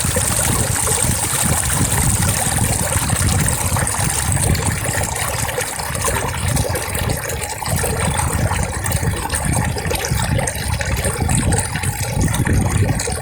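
Flowing stream water, a steady rushing with a strong low rumble underneath. A high hiss fades out a few seconds in.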